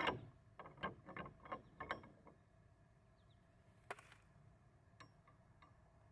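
Steel cane bolt clicking and knocking against its metal brackets as it is twisted and lifted by hand: a quick run of sharp metal clicks over the first two seconds or so, then a single click a little before four seconds in.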